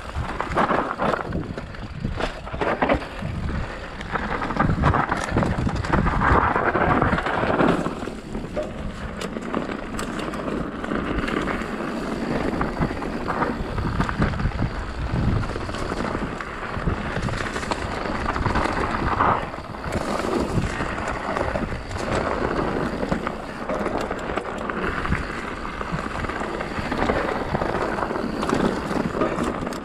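Mountain bike rolling fast down a rocky dirt trail: a steady rush of tyre noise with the bike knocking and rattling over rocks and roots.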